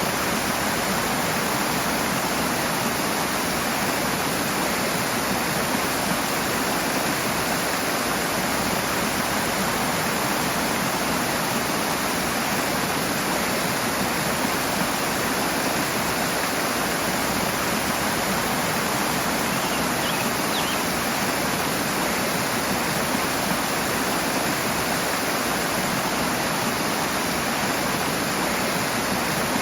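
Rushing water: a steady, dense hiss of fast-flowing water that does not let up.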